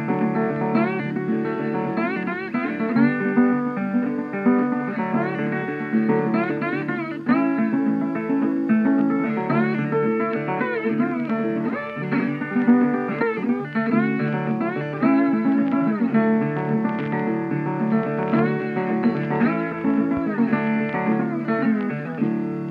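Background guitar music: plucked notes, many of them sliding or bending in pitch.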